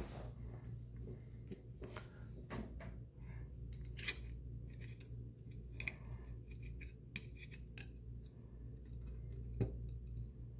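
Hex driver and small metal screws clicking and scraping as an RC car's brushless motor is screwed onto its motor mount. The sharpest clicks come right at the start, about four seconds in and shortly before the end.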